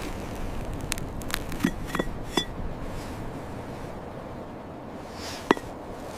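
Light clinks of hard objects knocking together, like dishes or metal, about five over a few seconds, each with a short ring. The loudest comes near the end, over a steady background hiss.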